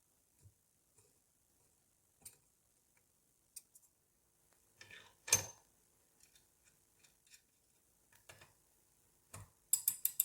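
Steel blades of a pair of old, restored scissors clicking as they are worked open and closed: scattered short metallic clicks, the loudest about five seconds in, and a quick run of sharp clicks near the end.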